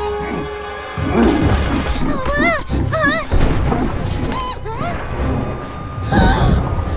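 Cartoon soundtrack: background music with wordless, wobbling character vocal sounds around the middle and again near the end, and a few short knock-like sound effects.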